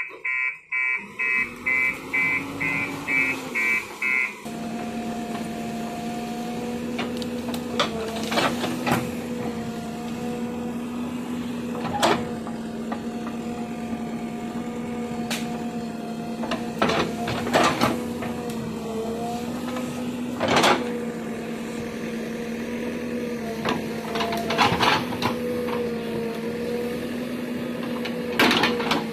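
JCB 3DX backhoe loader's diesel engine running steadily under digging load, its drone dipping slightly now and then, with clunks and knocks of the bucket and arm working the soil. For the first few seconds a pulsed beeper sounds about twice a second.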